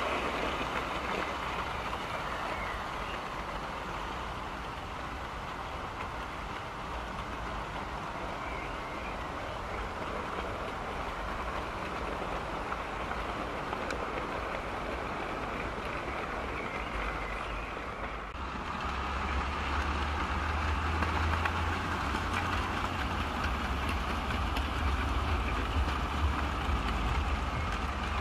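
OO gauge model freight train running along garden track: a steady rolling of small wheels on the rails and the running of the locomotive's motor. Partway through, a louder low rumble joins in.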